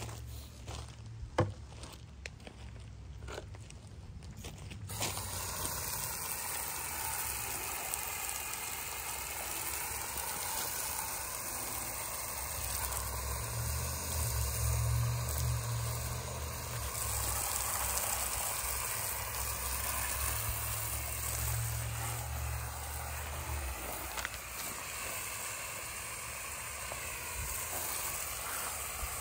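A few crunching steps on gravel, then from about five seconds in a garden hose sprays water steadily onto a motorcycle as a continuous hiss.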